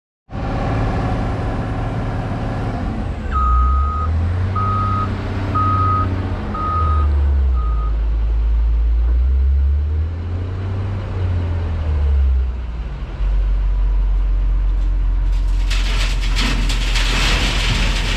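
Heavy vehicle engine running and revving up and down as it backs up, its backup alarm beeping five times about a second apart. About 15 seconds in, a loud rush of rock pouring begins while the engine keeps running.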